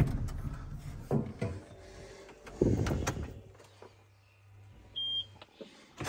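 Knocks and thumps of someone climbing into a tractor cab and handling the door, then a low hum and one short electronic beep about five seconds in as the ignition is switched on, just before the engine starts.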